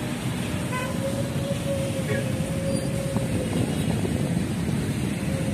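Road traffic noise from a jammed road of trucks and cars: a steady rumble of engines, with a brief beep about a second in and a drawn-out steady squeal from about one and a half to three seconds in.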